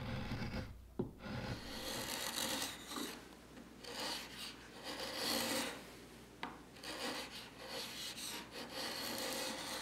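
Bench chisel paring the edges of a mahogany board by hand: a run of scraping, slicing strokes across the wood as it rounds the corners over, with a sharp click now and then.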